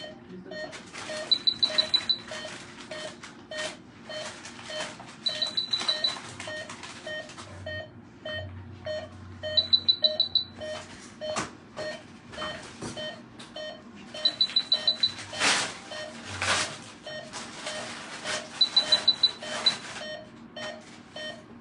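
Veterinary anaesthesia monitoring equipment beeping: a steady lower pulse beep about twice a second, and every four seconds or so a quick run of high-pitched alarm beeps. A few faint handling clicks come in between.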